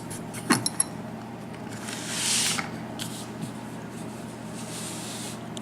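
Small handling noises from a picked pin-tumbler lock and its picking tools: a few sharp clicks near the start, then a short scraping rustle about two seconds in and a fainter one near the end.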